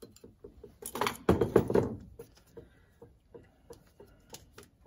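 Hands handling metal relay-valve parts on a wooden workbench: a loud burst of rustling and knocking about a second in, lasting about a second. Under it, a faint even ticking of about six ticks a second.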